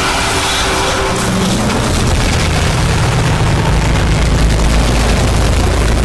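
Noise music: a dense wall of harsh static with a low rumble underneath that grows heavier about two and a half seconds in.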